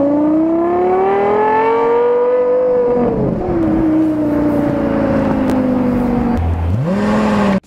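Performance car's exhaust under acceleration: the engine note climbs steadily in pitch for about three seconds, then eases slowly down, with a short rev-up just before it cuts off.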